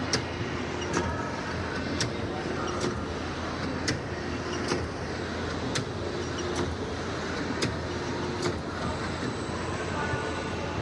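Thermal transfer overprinter cycling on a film web: a sharp click about once a second, one per print stroke, with brief motor whines between clicks, over a steady machine hum.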